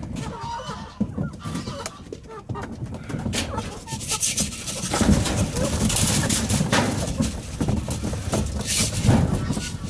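Chickens calling with short clucks. A loud rustling, scuffling noise takes over about halfway through.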